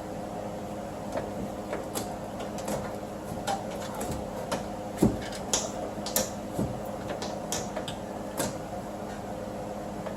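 Screwdriver being fitted into a hole in a car door to prop up the window glass: scattered light clicks and taps of metal on the door, with a few sharper knocks about five and six seconds in, over a steady hum.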